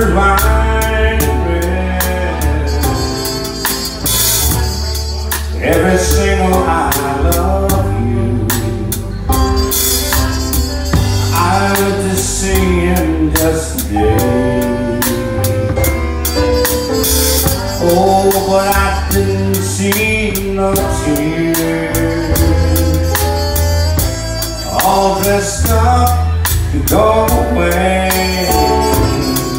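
Live band music: a male singer at the microphone over keyboard and a drum kit.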